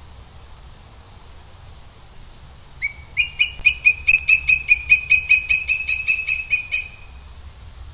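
Booted eagle calling: a rapid, evenly spaced run of shrill notes, about four to five a second, starting about three seconds in and lasting some four seconds.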